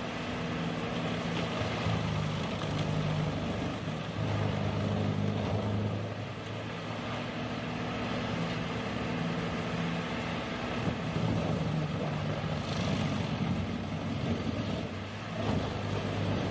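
A machine's engine running steadily with a rumbling noise, its low hum changing slightly a couple of times.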